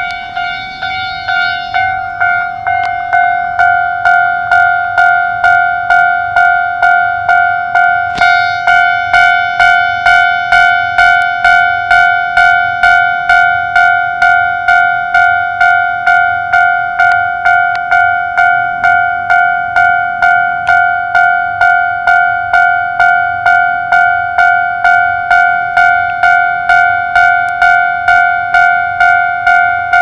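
Electronic railway level-crossing warning bell ringing over and over, a steady two-tone ding a little under twice a second, growing louder over the first few seconds and then holding level: the crossing's signal that a train is approaching.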